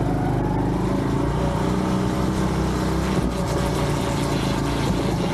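Honda Trail 125's single-cylinder four-stroke engine running steadily as the bike rides a dirt trail. Under it is a strange noise that the rider cannot place and guesses may be the chain.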